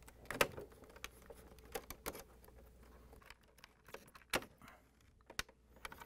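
Wire harness plugs being worked loose and unplugged from a refrigerator dispenser control board: faint plastic clicks and rattles, with a few sharper clicks, the loudest about half a second in.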